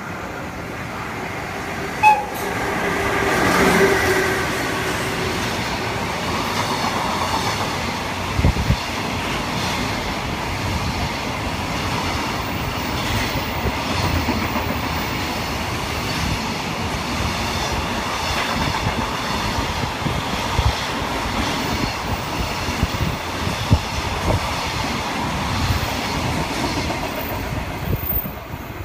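EF66 electric locomotive running through the station at speed with a container freight train. There is a brief sharp sound about two seconds in, then the locomotive's whine peaks and falls as it passes. After that comes a long, steady rumble with the rhythmic clickety-clack of container wagons over the rail joints, fading near the end.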